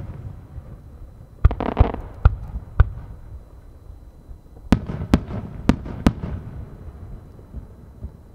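Aerial firework shells bursting overhead: four sharp bangs in quick succession about a second and a half in, then four more about five seconds in, with a low rumble carrying on between them.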